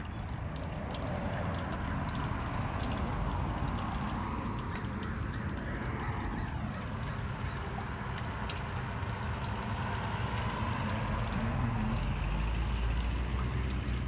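Water trickling and dripping down inside a storm drain beneath a street grate, a steady run of water with scattered small drips over a low rumble.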